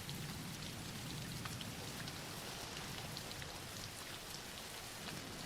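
Steady soft rain with scattered individual drop ticks, laid as a background bed.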